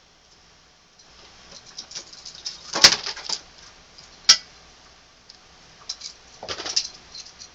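Small objects being handled on a wooden dresser: rustling and light clicks, with two sharp knocks a second and a half apart near the middle.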